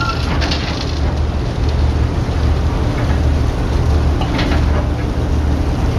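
Passenger ferry's engines running with a steady low rumble, heard from on deck, under a constant noisy hiss.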